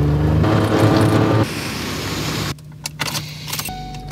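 A vehicle engine running steadily. The sound changes abruptly about a second and a half in and again at about two and a half seconds, where it drops off sharply to a quieter, thinner engine sound.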